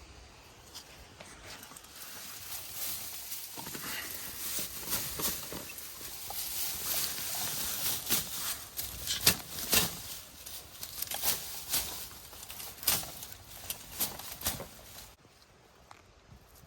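Leaves and vines rustling and crackling as they are handled, with many irregular sharp snaps. It grows busier about two seconds in and stops suddenly near the end.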